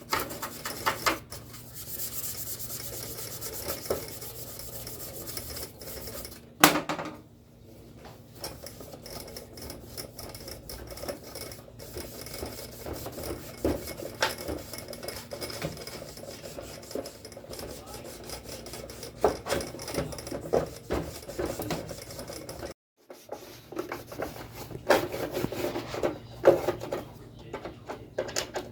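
Scratchy rubbing and scrubbing on the casing of a Sony CFS-1058S radio cassette recorder as it is cleaned, broken by frequent small handling knocks and clatter. One sharp knock comes about seven seconds in.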